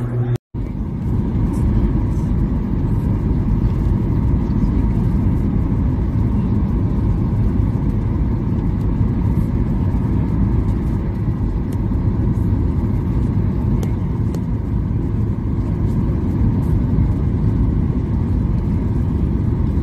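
Steady airliner cabin noise in flight: a constant low engine-and-airflow drone with a faint hum above it, starting after a brief cut near the start.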